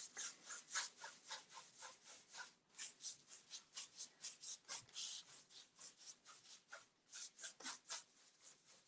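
Paintbrush scrubbing back and forth over a rough wooden tabletop, laying on a second coat of chalk paint. The strokes are short and rhythmic, about three a second.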